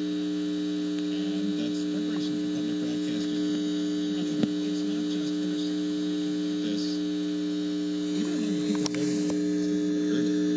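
Steady electrical hum from a guitar amplifier connected to a homemade foxhole crystal radio, with two brief clicks, about four and a half seconds in and near nine seconds.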